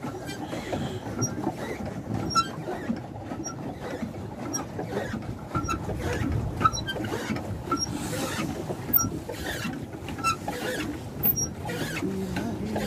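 A small boat moving across a lake: water splashing and lapping along the hull, with many irregular light clicks and ticks over a steady low rush.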